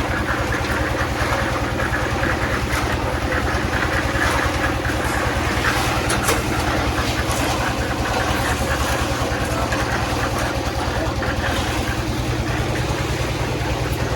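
An engine running steadily at an even speed, with a constant low pulsing.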